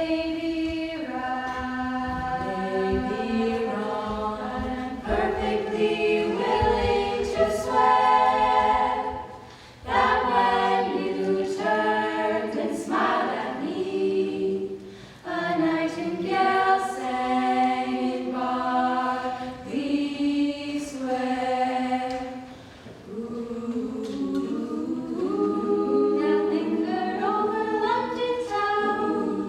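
Women's a cappella group singing a slow jazz standard in close harmony, several voice parts holding chords together, with short breaths between phrases.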